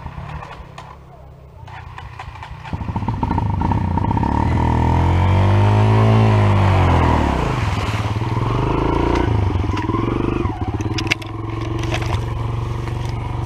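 Small dirt bike engine coming up about three seconds in, revving up and back down once, then running steadily.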